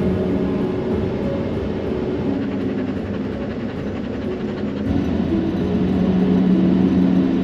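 Road noise inside a moving car's cabin: a steady drone of engine and tyres with a constant low hum.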